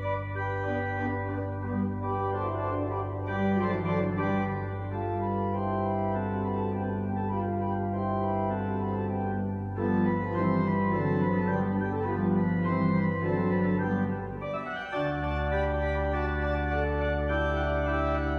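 Pipe organ playing a melody in several voices over a held low pedal note. About 15 seconds in, the bass drops to a new, lower held note.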